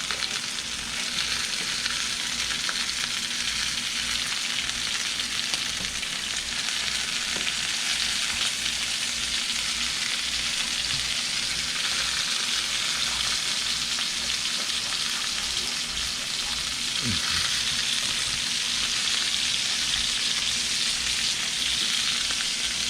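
Chopped onions and bell peppers frying in a wok: a steady sizzle.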